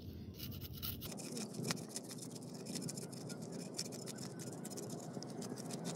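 A knife scraping the scales off a small fish in quick, light scratching strokes that come again and again.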